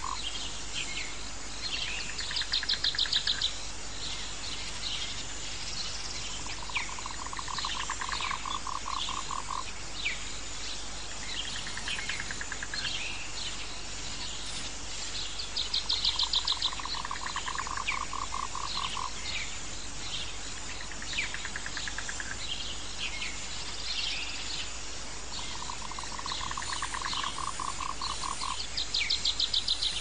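Jungle ambience of calling animals: a steady bed of short chirps, a pulsed trill that comes back about every nine seconds, and a louder, higher rattling trill heard three times.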